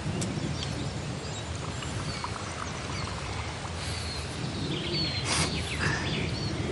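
Outdoor field ambience: small birds chirping over a steady low rumble, with a brief sharper noise about five seconds in.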